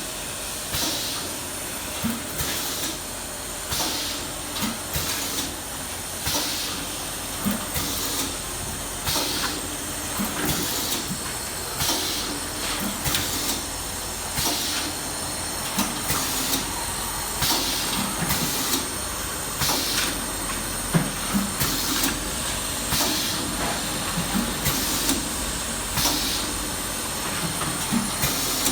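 Automatic POF shrink-film sealing and shrink-wrapping machine running: a steady hiss with short hissing bursts and light knocks repeating roughly once a second as it cycles.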